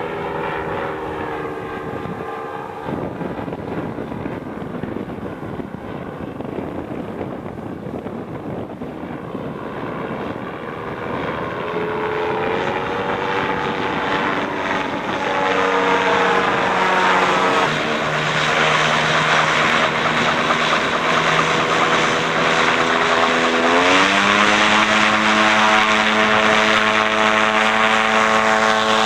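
Gyroplane engine and propeller running in flight, getting louder past the middle as the aircraft comes closer. Its pitch shifts up and down several times with throttle changes, with a clear rise a few seconds before the end.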